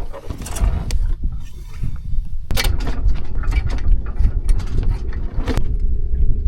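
Sounds aboard a San Juan 21 sailboat under way: a heavy, fluttering low rumble with scattered knocks and clatter, and a rushing noise from about two and a half seconds in to about five and a half.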